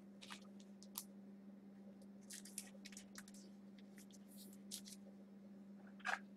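Trading cards being handled: faint, scattered rustles and clicks, the longest a short scrape near the end, over a faint steady hum.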